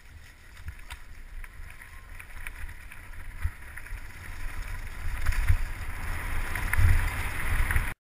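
Mountain bike riding down a rough dirt trail: wind buffeting the bike-mounted camera's microphone, with a deep rumble and rattles and knocks from the bike. It grows louder as the ride goes on, then cuts off abruptly near the end.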